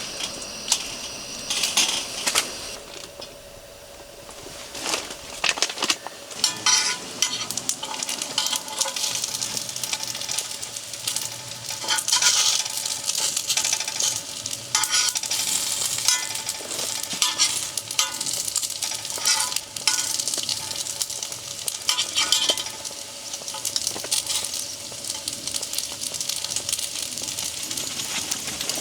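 Food sizzling in a frying pan as it is stirred, with frequent clicks of a utensil against the pan and brief louder surges of sizzle.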